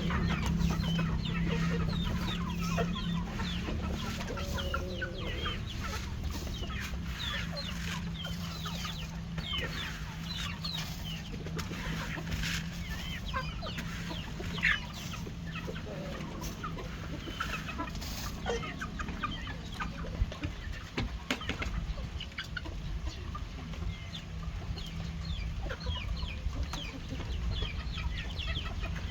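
A flock of backyard chickens clucking as they feed, with many short, scattered calls, over a steady low hum.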